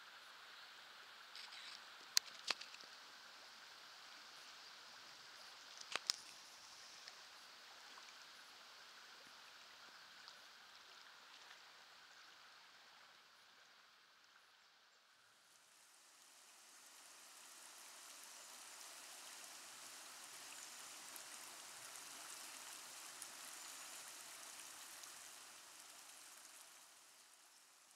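River current running faintly, a soft steady rush of flowing water. A few sharp clicks stand out in the first six seconds, and after a dip in the middle the rush comes back brighter and a little louder.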